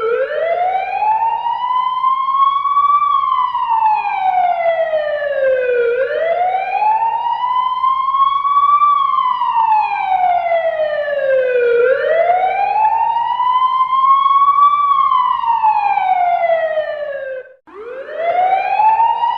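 Fire engine siren in a slow wail: the pitch rises and falls once about every six seconds, three full cycles. There is a brief cut about 17 seconds in, then it starts rising again.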